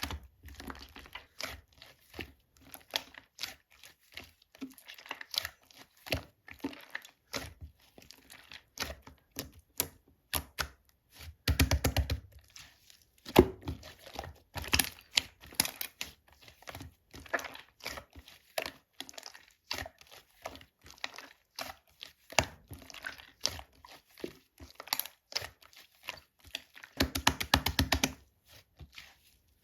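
Slime being played with by hand: a steady string of sticky clicks and pops as it is pressed, stretched and folded. There are two runs of rapid, louder clicking, about 12 seconds in and near the end.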